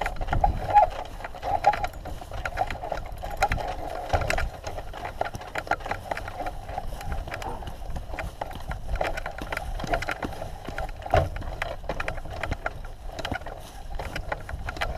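A landed hang glider in the wind: its sail and frame buffet and rattle, with many irregular clicks and knocks over a steady rushing.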